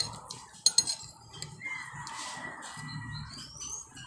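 A rooster crowing, one drawn-out call lasting about a second and a half that begins about one and a half seconds in and rises at its end. A few sharp clicks come in the first second.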